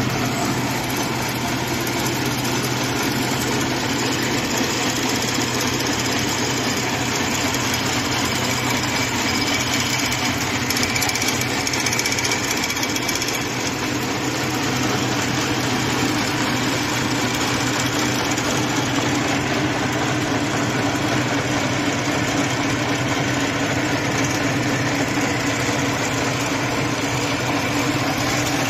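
Needle loom for narrow webbing (cotton tape, seat-belt webbing, niwar) running at speed: a fast, steady mechanical clatter with a steady hum underneath.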